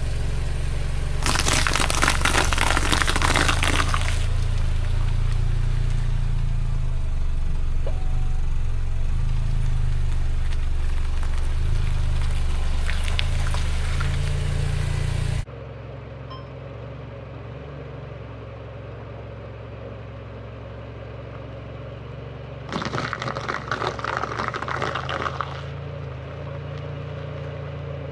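A car's engine running low and steady while its tyres roll over and crush objects, giving two crackling crunches of a few seconds each, one near the start and one past the middle.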